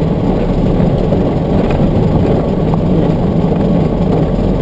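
Steady engine and road noise heard from inside the cab of a moving vehicle.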